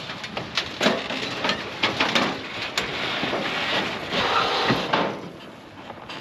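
1986 Toyota Land Cruiser 60 Series rolling off a steel car trailer onto gravel: a run of clanks and knocks with tyres crunching, dying away about five seconds in.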